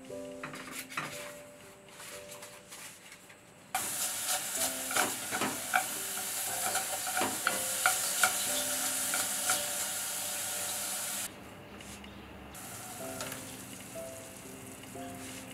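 Ground pork frying in hot oil in a metal pot, starting to sizzle loudly about four seconds in, with chopsticks clicking against the pot as they stir. The sizzle drops away sharply about eleven seconds in, leaving a softer frying hiss under background music.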